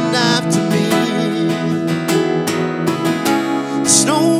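Acoustic guitar strumming with keyboard chords in a live band performance. A singer's voice comes in briefly near the start and again near the end.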